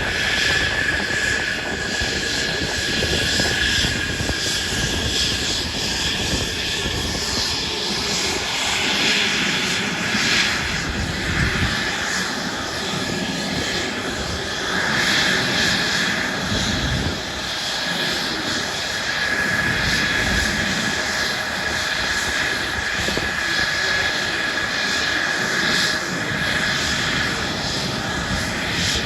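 An airplane flying overhead, its engine a loud, continuous rush with a steady high whine that fades in the middle and comes back.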